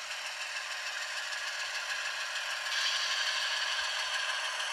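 Atlas HO-scale model train, a PRR H16-44 diesel pulling freight cars, running along the track with a steady rattle of wheels on rail. It gets a little louder past halfway as the train comes close.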